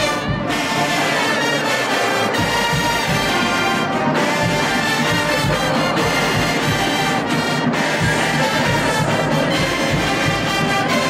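HBCU show-style marching band playing a loud brass-heavy tune of trumpets, trombones and sousaphones, in phrases with brief breaks between them.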